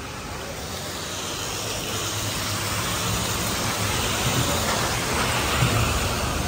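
A vehicle passing on a city street: a noise with a low hum that grows steadily louder over several seconds and peaks near the end.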